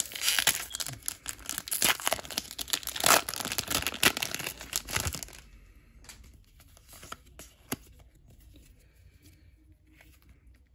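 Foil wrapper of a Pokémon card booster pack being torn open and crinkled: dense crackling for about five seconds. Then it goes much quieter, with a few soft clicks as the cards are handled.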